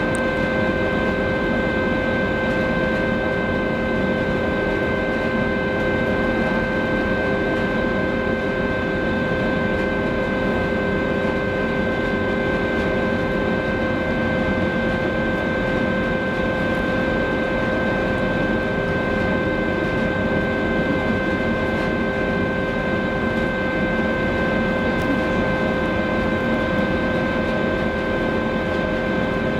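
The Silja Symphony cruise ferry's engines and ventilation heard across the harbour: a steady hum with several held tones over an even rumble as the ship gets under way.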